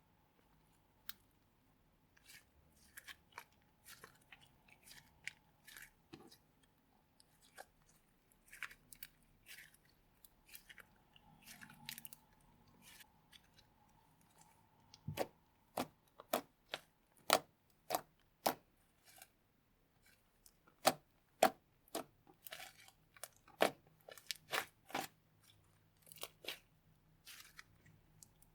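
Slime being squished and worked by hand, making irregular sharp pops and crackles that grow louder and more frequent about halfway through.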